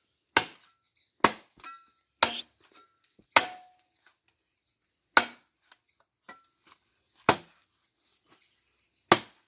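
Firewood being chopped: seven sharp, separate strikes on wood, about a second apart at first and more widely spaced later.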